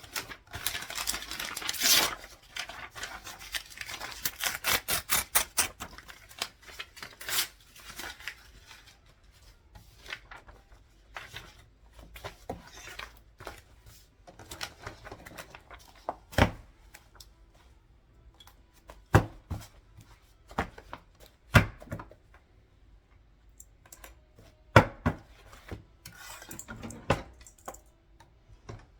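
Desk paperwork sounds: paper being rustled and torn with a fast run of crisp clicks for the first several seconds, then scattered single sharp taps and knocks.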